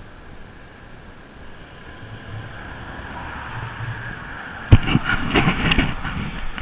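A vehicle approaching and passing close by, its noise swelling over a few seconds. Two-thirds of the way through comes a sudden loud knock, then a quick run of clattering knocks.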